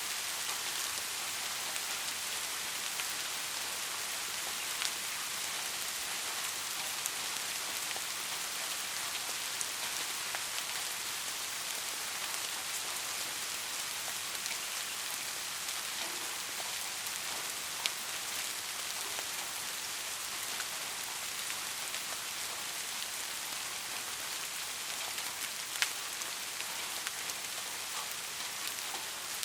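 Soft, steady rain pattering on a surface, with a few louder single drops standing out now and then.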